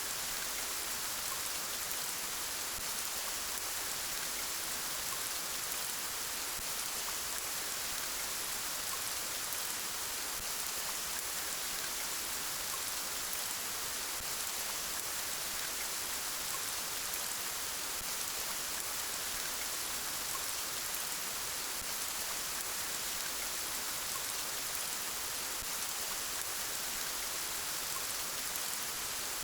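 Steady rain falling, an even hiss of drops with faint tiny pattering ticks and no change throughout.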